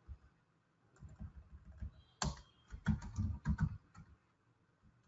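Typing on a computer keyboard: an irregular run of keystrokes with short pauses, starting about a second in and stopping about a second before the end.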